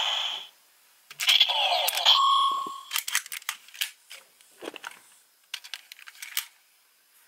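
A battery-powered toy gun with a phone-style keypad plays electronic sound effects: one with warbling pitch glides fading out at the start, and another about a second in that settles into a steady beep. After that come scattered plastic clicks and rattles as the small key figures are pulled from and handled at the toy's slot.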